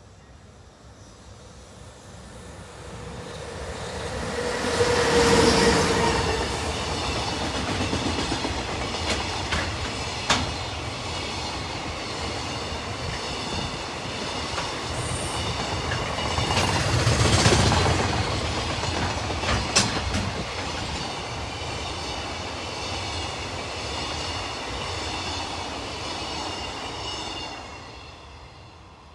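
Freight container train hauled by an EH500 electric locomotive passing close by. The rumble builds and peaks as the locomotive goes by about five seconds in. The container wagons then clatter past steadily with a few sharp wheel clicks, and the sound fades away near the end.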